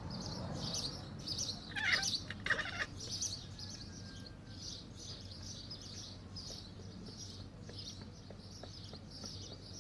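Small birds twittering continuously in the background. About two seconds in, two short, louder bursts of cat chattering cut across the birdsong: the cat's imitation of the birds.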